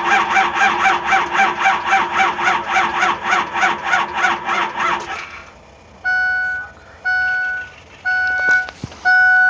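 Ford F-350 engine cranking on the starter with an even chugging, about four to five strokes a second, without catching. The cranking slows a little and stops about five seconds in, and after it a warning chime beeps about once a second.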